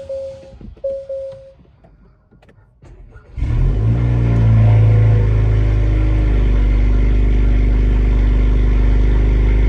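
A few short chime tones in the first second and a half. About three seconds in, the 2022 Acura TLX's turbocharged 2.0-litre four-cylinder, straight-piped with a downpipe and muffler delete, starts up with a brief flare and settles into a loud, steady idle.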